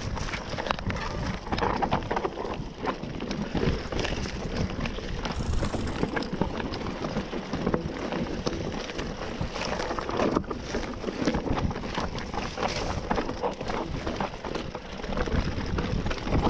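Mountain bike riding over rocky, loose singletrack: tyres crunching over stones and the bike rattling with constant small knocks and jolts, over rushing wind noise.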